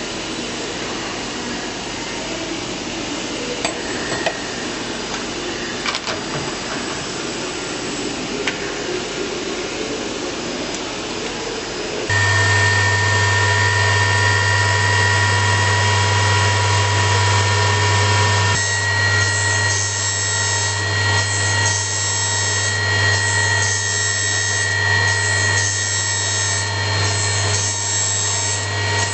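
CNC circular saw blade grinding machine at work. About twelve seconds in, its grinding wheel motor comes on with a loud steady hum and whine. A few seconds later the wheel starts grinding the saw teeth one after another, a rhythmic scraping over the whine.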